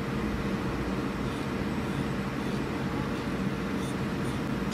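Steady mechanical hum of a CNC router with a linear automatic tool changer running, with a few faint high ticks near the end.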